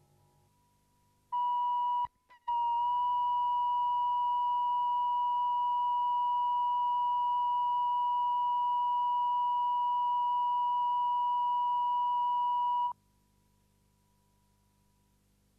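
Video-tape line-up test tone played with colour bars, the reference tone for setting audio levels: one steady, unchanging beep that starts about a second and a half in, drops out briefly just after two seconds, then holds for about ten seconds and cuts off suddenly.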